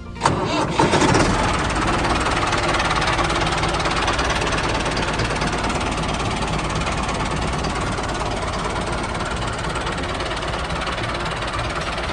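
A tractor engine starts abruptly and runs steadily with a dense, rapid chugging.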